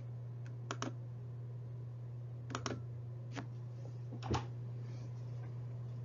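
A few sharp clicks, like computer keys or buttons being pressed: two quick pairs in the first three seconds, then two single clicks, the loudest about four and a half seconds in. Under them runs a steady low hum.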